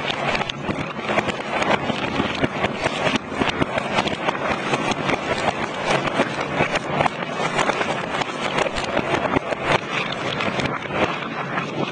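Marbles rolling and clattering down a marble run track, a dense continuous stream of small clicks and knocks over a rolling rumble.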